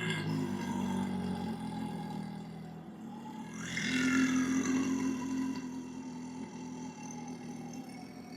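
Two long, deep belches from a man, one straight after the other; the second, starting about three and a half seconds in, is the louder and trails off slowly.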